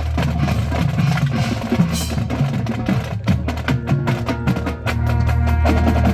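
High school marching band playing: held low brass notes under a busy percussion line of sharp, rapid clicks and drum hits.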